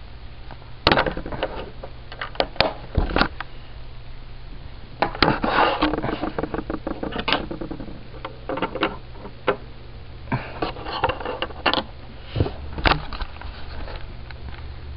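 Small plastic Lego bricks clicking and tapping as they are handled, pressed together and set on a tabletop: scattered sharp clicks, with denser rattling flurries about five and ten seconds in.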